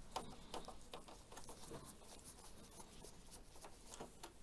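Phillips screwdriver turning a screw out of the underside of an Epson XP-55 printer's plastic case: faint, irregular small clicks and scrapes.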